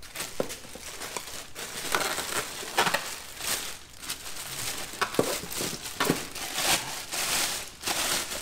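Packing material crinkling and rustling in irregular bursts as a new mini drill press is unpacked from its box.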